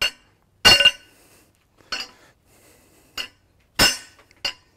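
Hammer striking the end of a steel bar driven through a Ford 302 engine block's cam bores, pushing a cam bearing removal tool to knock out an old cam bearing. Six sharp metallic clanks with a short ring, unevenly spaced, the hardest ones about two-thirds of a second in and near the end.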